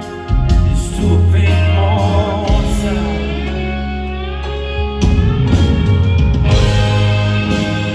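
Live rock band playing on stage, heard through the PA from the audience: electric guitars over a steady bass and drums.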